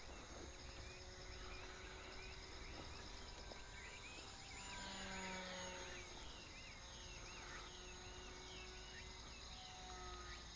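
Faint outdoor background with a run of short high chirps, and the faint whine of a small electric model-plane motor coming and going as the tethered plane circles.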